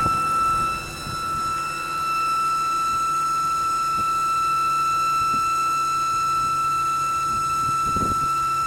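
BMW E92 325i straight-six running at a steady idle with a loud, steady, high-pitched whine from the engine bay, which the owner suspects comes from a failing bearing.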